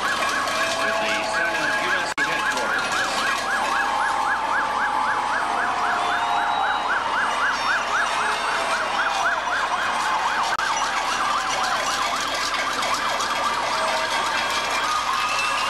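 Emergency vehicle siren yelping in a fast up-and-down sweep, about four to five times a second, over a second, slower wailing siren tone. The yelp fades out about two-thirds of the way through.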